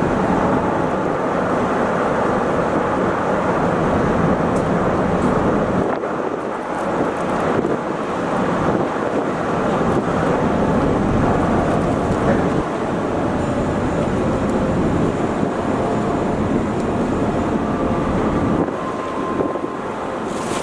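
The ferry Tsukushi's engines and propeller wash running steadily as the ship pulls away from the quay, with wind on the microphone.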